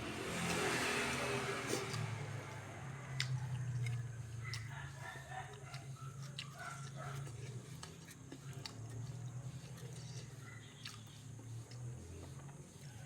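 A person chewing and eating rice with fried tempeh, with scattered small mouth and crunch clicks over a steady low hum.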